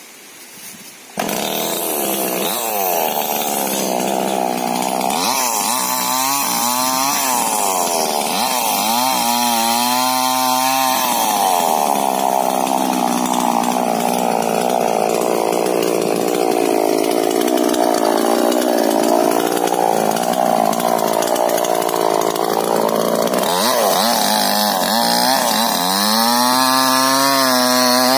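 Stihl two-stroke chainsaw running, starting suddenly about a second in and revved up and down several times, then held at high revs near the end as the chain cuts into the base of a rubber tree trunk.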